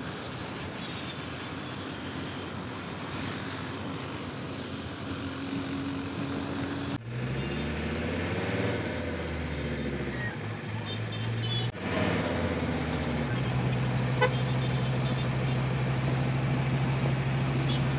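A motorcycle engine runs under road and wind noise while riding through traffic. After a cut, a minibus engine is heard from inside the cabin, its pitch rising and falling at first and then holding steady.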